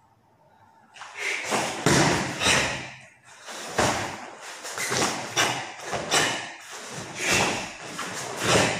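Karate kata footwork and techniques: a run of quick thuds from bare feet stepping and stamping on foam mats, with the swish and snap of the karate uniform on each move. They start about a second in, after a near-silent pause.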